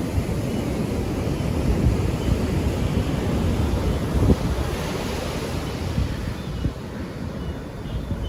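Sea waves washing onto a beach, with wind noise on the microphone.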